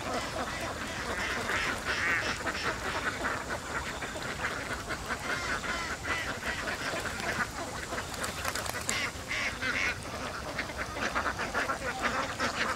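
A large flock of domestic ducks quacking without pause, many birds calling over one another.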